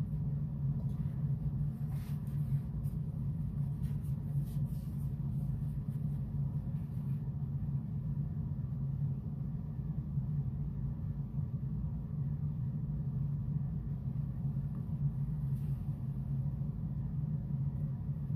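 A steady low hum runs throughout, with a few faint light clicks and rustles in the first seven seconds.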